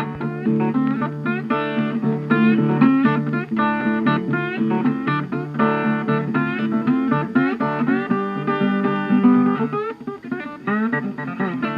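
Background music: acoustic guitar, plucked and strummed in a blues or country style.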